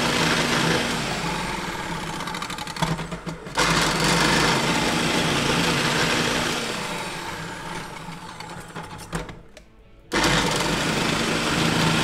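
Electric food processor running with its grating disc, shredding zucchini pushed down the feed tube. The motor runs in three spells, fading away before each of the first two stops and starting again at full speed.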